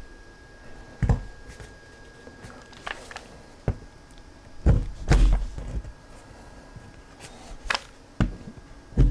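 Irregular dull knocks, about eight in all, as the body of a DeWalt cordless drill is used as a hammer to tap plastic wall anchors into pre-drilled pilot holes in a wall. The drill motor is not running.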